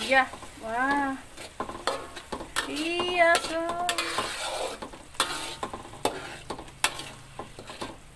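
Metal spatula scraping and clinking against an aluminium wok as spice paste is stirred, with the paste sizzling in the oil. A few short voice-like pitched sounds come at the start and about three seconds in.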